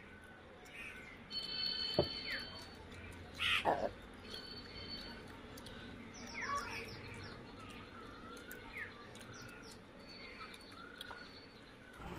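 Birds chirping and calling in the background, with repeated short chirps, a trill and a louder harsh call about three and a half seconds in. A single sharp knock sounds about two seconds in.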